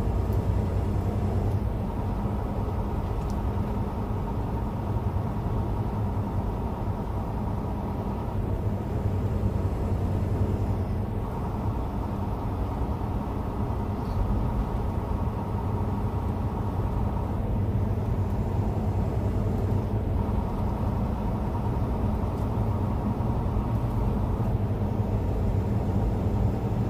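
Steady engine drone and road noise heard inside a truck cab cruising at highway speed.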